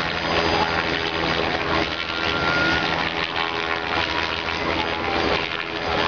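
Helicopter with a two-blade main rotor hovering low, its engine and rotor making a steady, loud drone with a low hum under a wash of noise.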